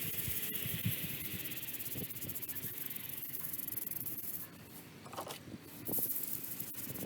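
A steady high-pitched hiss with a few soft knocks under it; the hiss cuts out for about a second and a half near the end, then resumes.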